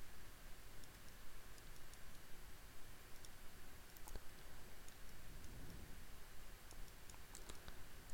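Faint, scattered clicks of a computer mouse being used at irregular intervals, over a steady low hiss.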